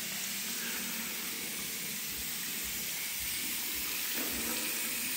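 Water running steadily from a washbasin tap onto hands being washed under it.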